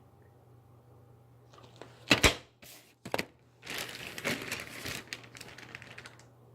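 Plastic parts bags crinkling as they are handled, with a sharp loud crackle just after two seconds, a shorter one about a second later, then a stretch of steady crinkling that stops just after six seconds.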